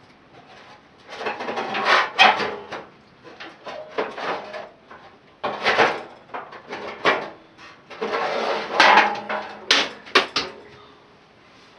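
Irregular clattering and scraping of metal parts being handled and worked loose, with a few sharp knocks near the end.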